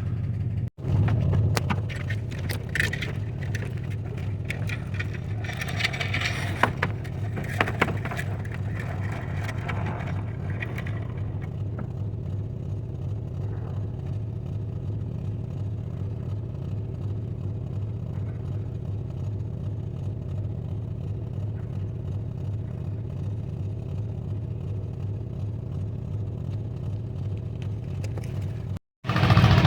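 An engine idling steadily, with metallic clanks, scrapes and rattles over it during the first ten seconds or so.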